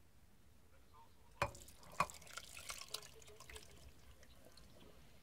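Canned pineapple chunks and juice poured from a tin can into a crock pot: a sharp knock about a second and a half in, another about half a second later, then faint splashing and plopping of juice and fruit.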